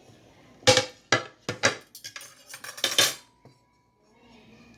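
A metal spoon or scoop clinking and scraping against a rice cooker's inner pot and a plate while rice with noodles and soup is scooped across, about half a dozen sharp clinks. A short, faint steady tone sounds near the end.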